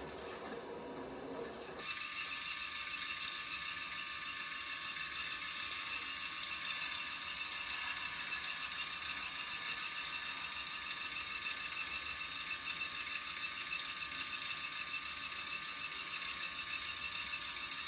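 LG direct-drive top-load washer: a sound of water filling stops abruptly about two seconds in, and a steady mechanical whir with a high-pitched whine from the washer's direct-drive motor takes over.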